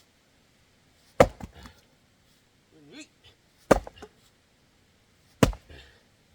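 Axe chopping firewood: three sharp blows into a log, about two seconds apart, each followed by a few smaller knocks of wood.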